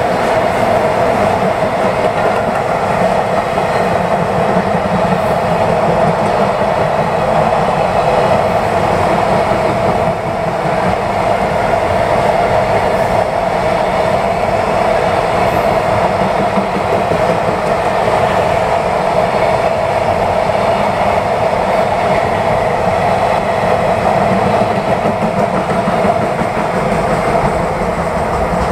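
A long container freight train's wagons rolling past, a steady loud run of steel wheels on rail with a constant ringing tone over it. It eases a little near the end as the last wagon goes by.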